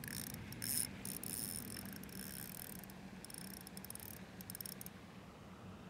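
Fishing reel clicking rapidly as it is worked, a fine ratchet-like ticking in two spells: one in the first second and a half, another from about three to five seconds in.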